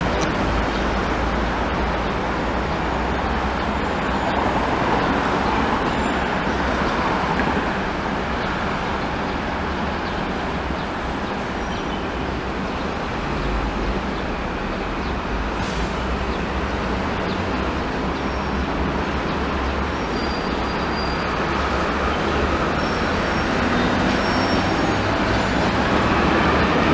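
Steady traffic hum; near the end a refurbished Comeng Phase I light rail vehicle comes close, and its running noise on the rails grows louder as it passes.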